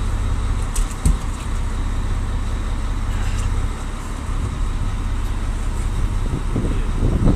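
Steady low rumble of the fishing boat's engine running, with a short knock about a second in.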